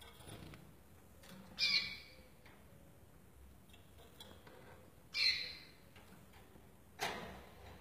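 European goldfinch giving three short, harsh calls at a hand at its cage bars, about a second and a half, five and seven seconds in. The last call reaches lower, with a knock on the wire cage.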